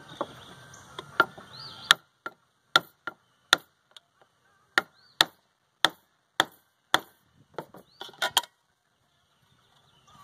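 Claw hammer striking a screwdriver set against the steel housing of a microwave magnetron to break it open: about eighteen sharp metallic strikes, roughly two a second, some with a short ring, quickening into a rapid cluster about eight seconds in, then stopping.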